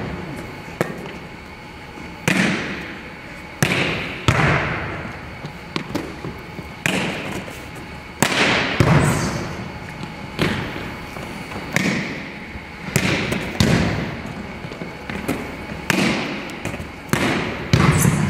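A volleyball being smacked and dug over and over, a sharp hit every second or so that rings on in the echo of a large hardwood-floored gym. Between the hits come thuds of a player diving and rolling on the floor.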